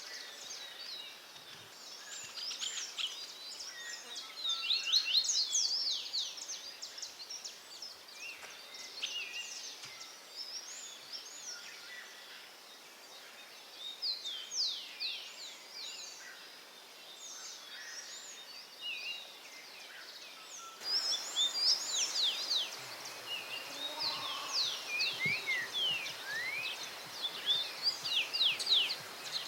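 Wild songbirds singing and chirping: many quick, high, sweeping notes overlap throughout, over a steady background hiss that shifts about two-thirds of the way through.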